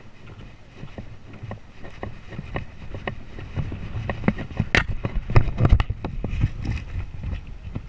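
Horse walking on beach sand, heard from the saddle: wind rumbling on the microphone over a steady series of soft hoof thuds about twice a second, with a cluster of louder knocks about five seconds in.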